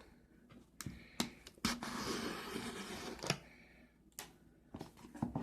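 A few sharp clicks and knocks with a stretch of rustling in the middle, as a shipping box is handled before it is opened.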